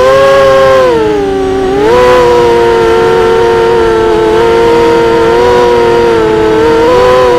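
Brushless motors and Gemfan 5x4 propellers of an ImmersionRC Vortex FPV racing quadcopter whining, heard from its onboard camera. The pitch dips about a second in, climbs back a second later and then holds fairly steady, rising slightly near the end.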